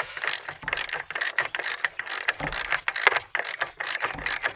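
Socket ratchet with a 13 mm deep-well socket clicking rapidly in quick uneven runs as it backs off a master cylinder mounting nut that has just broken loose.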